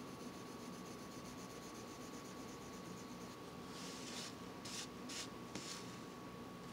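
Faint dry scratching of a colored pencil and paper card, with a handful of short scrapes a little past the middle as the card is shifted on the desk. A faint steady hum runs underneath.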